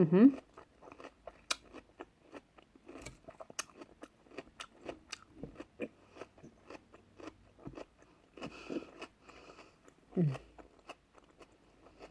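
Close-up chewing and crunching of salad, with irregular crisp bites and mouth clicks. A couple of brief hums come in between.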